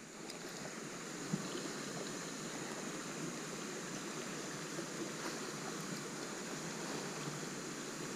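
Steady rushing of creek water flowing, with one faint click about a second in.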